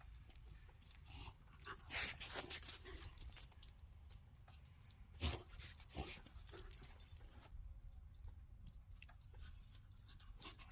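A dog moving about and making quiet noises, with scattered light taps and rustles; the loudest rustle comes about two seconds in and a sharp knock about five seconds in.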